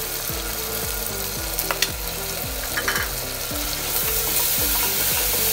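Ground spices (turmeric and coriander powder) sizzling and frying in hot oil in an aluminium pressure cooker, with a steady hiss. A spatula stirring them clicks against the pot a few times.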